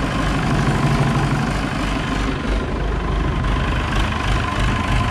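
Massey Ferguson 178's four-cylinder Perkins diesel engine idling steadily, with a faint steady whine over it.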